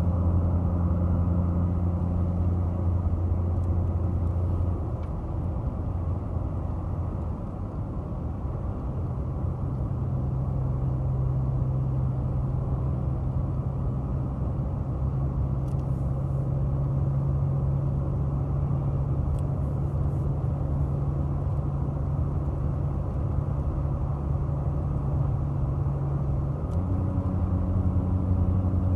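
In-cab sound of a 2014 Ford F-150's 3.5 EcoBoost twin-turbo V6 under load, pulling a roughly 7,000-pound travel trailer up a long climb: a steady engine drone over road noise. The engine note steps up to a higher pitch about ten seconds in, with higher revs, and drops back near the end.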